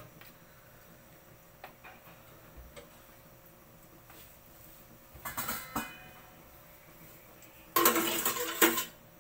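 Metal spatula clinking and scraping against an enamel pot with hot oil in it: a few light clicks, a ringing clink about five seconds in, then a louder stretch of scraping about a second long near the end.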